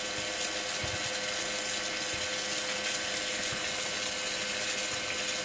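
Rule 500 gph 12-volt electric bilge pump running steadily while it pumps water out of the canoe: a steady hum with a hiss of moving water, not really that loud.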